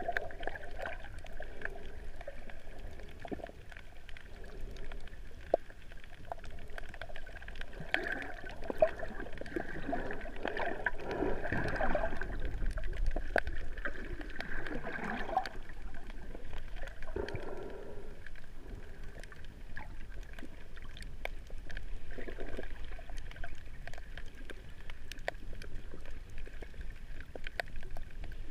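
Underwater sound picked up by a GoPro inside its waterproof housing: a muffled, steady water rush with many small scattered clicks and crackles. A few swooshing sweeps come through in the middle.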